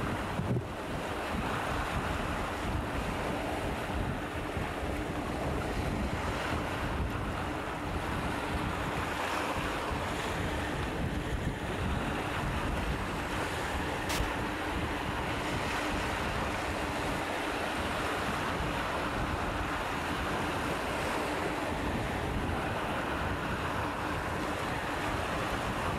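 Small bay waves lapping and washing over shoreline rocks, with wind buffeting the microphone and a faint steady hum underneath. A single sharp click about 14 seconds in.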